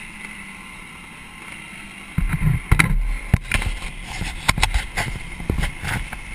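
Motocross bike's engine at low revs as it rolls slowly to a stop, heard through a helmet camera. About two seconds in, a louder low rumble starts, broken by a string of sharp knocks and thumps on the camera.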